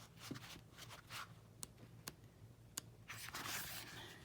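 Faint handling of paper: a few light ticks and a soft rustle about three seconds in as pages of a small guidebook are turned.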